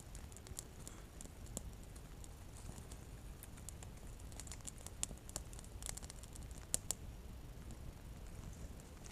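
Small campfire crackling faintly: irregular sharp snaps and ticks, a couple of louder pops around five and seven seconds in.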